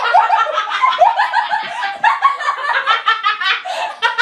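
A person laughing hard: a continuous run of high-pitched giggles, several a second.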